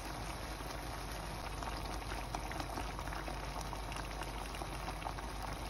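Butter chicken sauce of tomato and cream bubbling hard in a frying pan, a steady crackle of many small pops as the bubbles burst.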